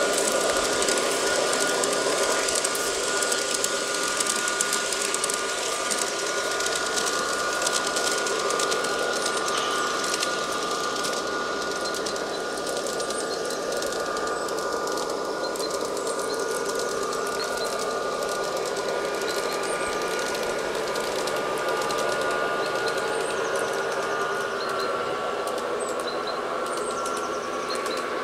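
LGB garden-scale model of a DB class 220 diesel locomotive running with a short train: a steady whine from its motor and gearing, with the wheels clicking and rattling along the track.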